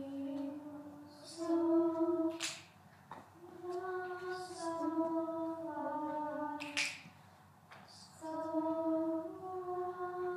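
Junior high choir singing a sight-reading melody in unison on solfege syllables, slowly, in long held notes that step up and down, with short breaks between phrases.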